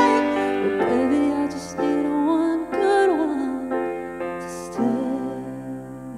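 Grand piano playing slow held chords under a woman's sung melody, the song winding down; the last chord rings and fades near the end.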